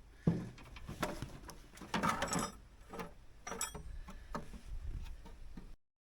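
Tools and parts being handled while working on a compact tractor: a string of clicks and knocks, with a denser clatter about two seconds in; the sound cuts off abruptly near the end.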